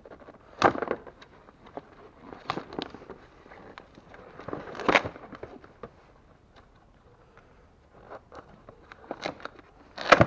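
Cardboard timing-belt kit box being handled and prised open at its glued flap: a handful of short scraping bursts, the strongest about a second in and at the very end, with a quiet stretch about six to eight seconds in.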